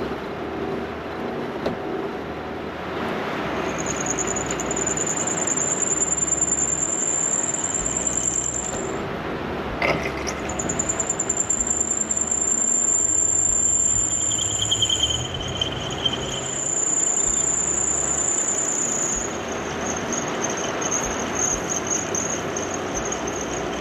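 A power tool working stainless steel, a steady grinding noise with a high, sustained squeal in three long stretches of several seconds each, with a brief break between them.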